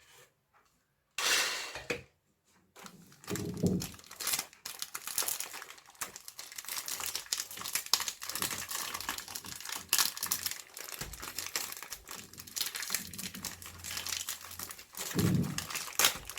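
Plastic biscuit packaging crinkling and crackling as dry biscuits are handled and crushed. After a short quiet start there is a brief rustle, then nearly continuous crinkling.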